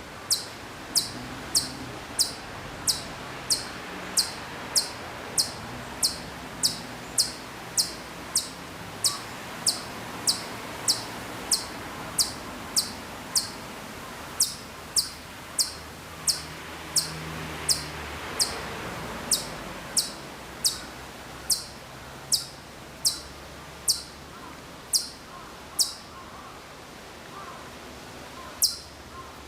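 Ezo chipmunk (Hokkaido Siberian chipmunk) giving its high, sharp single-note chip call about once a second, over and over. The calling breaks off near the end, and one more call follows after a pause.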